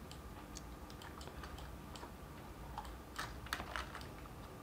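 Quiet, scattered clicks of a computer keyboard and mouse, with a denser run of clicks about three to four seconds in.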